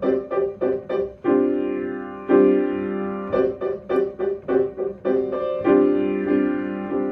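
Piano playing a rhythm exercise: runs of short, detached repeated chords at about four a second, alternating with longer held chords lasting about a second each.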